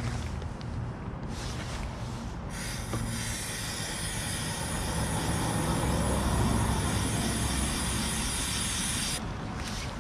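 A steady hiss of gas or spray under pressure starts about two and a half seconds in and cuts off sharply near the end, over a low rumble.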